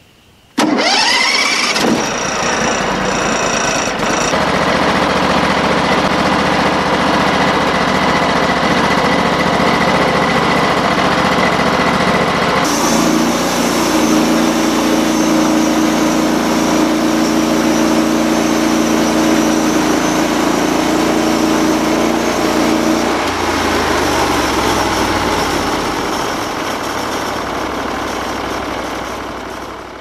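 Gasoline engine of a Norwood LumberPro HD36 portable bandsaw mill starting about half a second in and coming up to speed. It then runs steadily while the band blade saws a first slabbing cut along a log. The tone shifts about 13 seconds in and again about 23 seconds in, and the sound dies down near the end.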